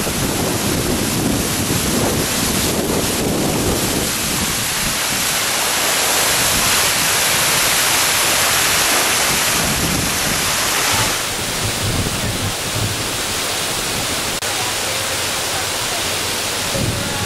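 A water-curtain fountain: many thin streams of water falling steadily in a sheet and splashing down, a constant rushing hiss. Wind rumbles on the microphone in the first few seconds, and the rush steps down a little about two-thirds of the way through.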